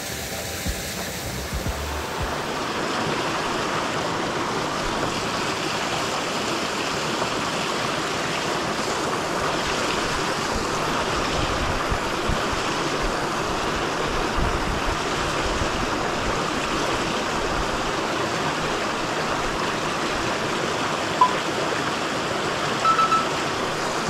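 Small mountain stream rushing over rocks in a low cascade, a steady rush of water that gets a little louder about two seconds in.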